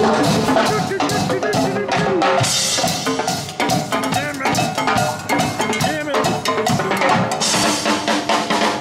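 A live percussion group playing drums together in a steady, driving rhythm.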